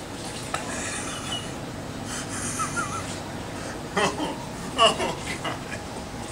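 A man's breathy gasps and short laughs as he reacts to the taste of the spring's mineral water, with loose bursts of laughter about four and five seconds in. The mineral-spring fountain's water runs steadily underneath.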